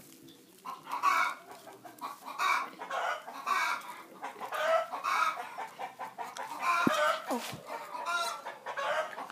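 Chickens clucking repeatedly, short clucks coming about once or twice a second.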